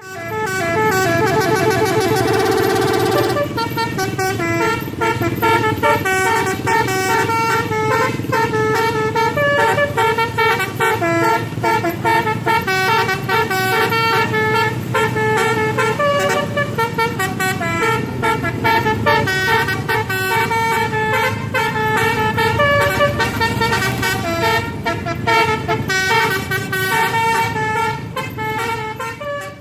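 Indonesian 'telolet basuri' multi-tone bus horn playing a tune. It holds one long chord for about the first three and a half seconds, then plays a quick run of short changing notes, easing off near the end.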